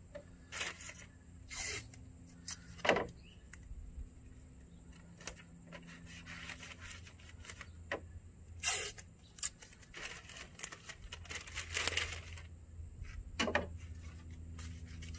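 Painter's tape being pulled off the roll and torn, with masking paper rustling, in a string of short rips and crinkles.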